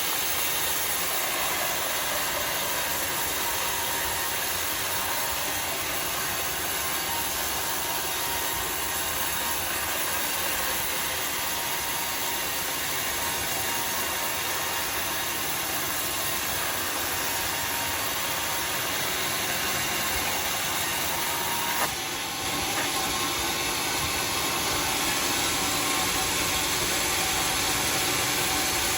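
A homemade sawmill running steadily while sawing a red bayur log: a constant hissing machine noise. About 22 seconds in there is a brief knock and the sound shifts a little, then goes on.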